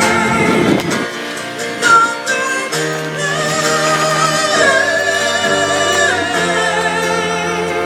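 Gospel worship music: wavering sung notes with vibrato over held low accompaniment notes.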